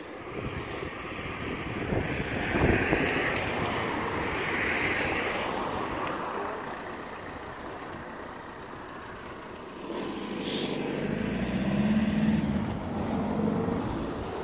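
Cars driving past close by: engine and tyre noise swelling and fading twice, the second pass with a low engine hum.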